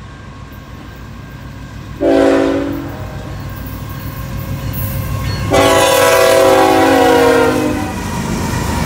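Canadian National diesel freight locomotive sounding its horn, a chord of several tones, on the approach: a short blast about two seconds in, then a long blast that sags in pitch as the locomotive draws alongside. The locomotive's low rumble and wheel noise build as it passes close by near the end.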